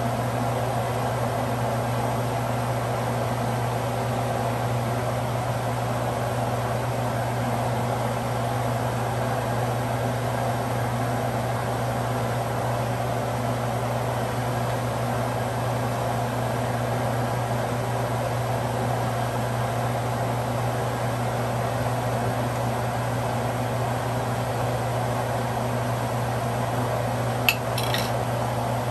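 A steady fan-like machine hum. Near the end a metal ladle is set down with a sharp clink on a ceramic plate.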